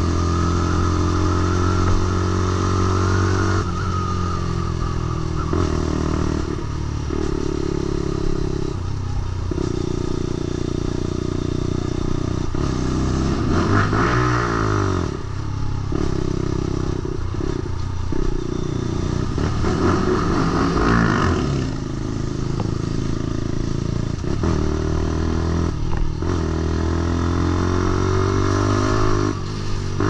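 Lexmoto LXR 125's single-cylinder four-stroke engine running through an aftermarket Black Widow exhaust while riding. The engine note repeatedly climbs and drops with throttle and gear changes, with short dips between gears.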